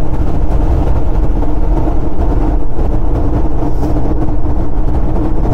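Steady drone inside the cab of a VW T3 camper van driving at speed, its swapped-in AHU 1.9 TDI four-cylinder turbodiesel running with a constant low hum under the road and wind noise.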